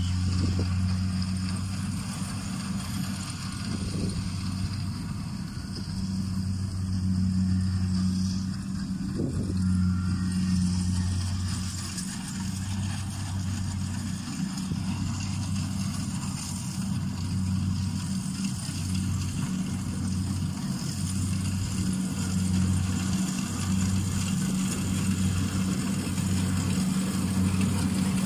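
Kubota DC-68G combine harvester's diesel engine running steadily in the field, a low drone that starts throbbing about once a second around halfway through.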